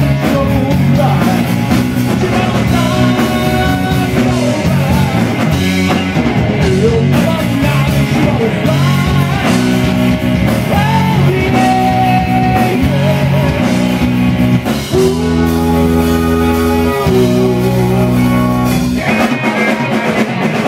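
Live southern rock band playing loud on electric guitars, bass guitar and drum kit, with a lead line bending over the top. A long chord is held about fifteen seconds in, and the bass end drops out near the end.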